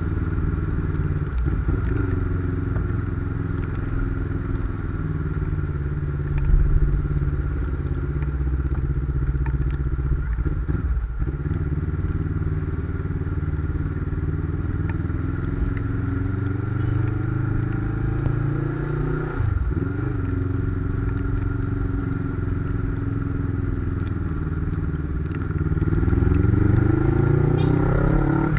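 Suzuki GS500's air-cooled parallel-twin engine heard from onboard while riding, its revs climbing and dropping several times, then rising and getting louder near the end as the bike accelerates.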